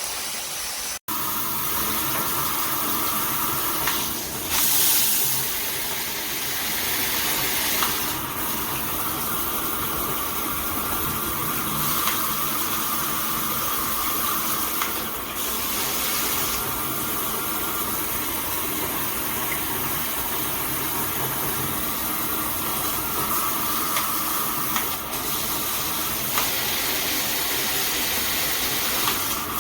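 Shower head spraying water steadily, its sound shifting a few times, with a brief dropout about a second in.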